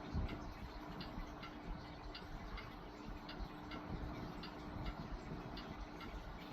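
Vintage Lakewood Country Aire box fan with a Westinghouse motor running on low speed: a steady rush of air over a faint motor hum, with its motor not yet warmed up. A light tick repeats a little under twice a second.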